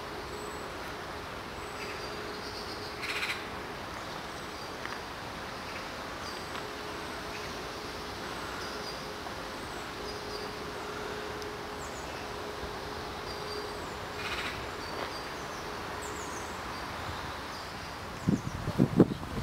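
Woodland ambience: a steady background hiss with small birds chirping, and two louder short bird calls, one a few seconds in and one about two thirds of the way through. Near the end, wind buffets the microphone in loud low gusts.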